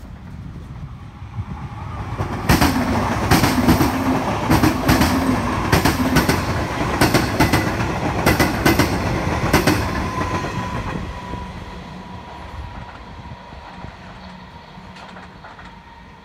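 A Comeng electric suburban train passes close by, with a rapid clickety-clack of wheels over rail joints. It then fades into the distance, trailing a thin, steady whine.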